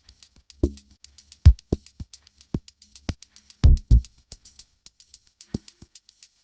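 Drum-machine beat: quick, steady hi-hat-like ticks over deep kick drums that drop in pitch, with the heaviest kicks about a second and a half and three and a half seconds in.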